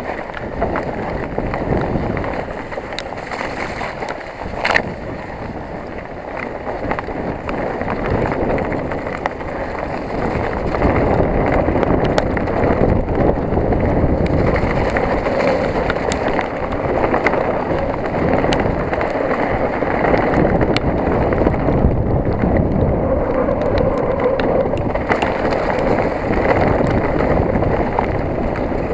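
Specialized Enduro 29 mountain bike descending at speed: a steady rush of wind on the microphone and tyres on the trail, with scattered sharp clicks and rattles from the bike. It gets louder about ten seconds in.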